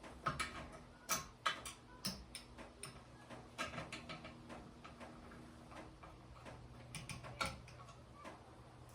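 Irregular light clicks and taps of ceiling fan blades and hardware being handled, over a faint steady low hum.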